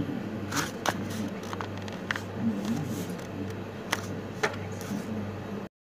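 A steady low hum with a handful of sharp light clicks and taps scattered through it, cutting off abruptly to silence near the end.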